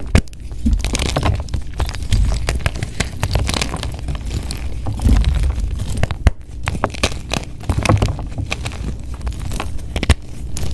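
Blocks of plain gym chalk being crushed and crumbled: dense crunching and crackling with a few sharp snaps.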